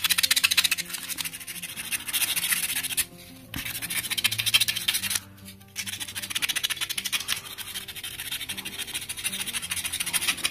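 Small piece of sandpaper rubbed quickly back and forth on the metal terminals of a cordless drill battery pack, a fast scratching that stops briefly twice, about three and five seconds in. It is scouring rust off the terminals. Soft background music underneath.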